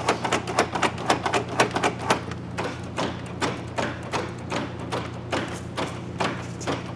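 Rapid run of clicks and clacks from a 1998 Chevy GMT-400 truck door's latch and lock mechanism as the new interior handle and lock are worked, several a second at first and lighter later, over a steady low hum.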